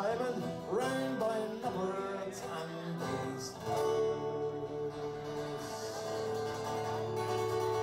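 Music with acoustic guitar and a singing voice; about four seconds in the moving melody gives way to long held notes.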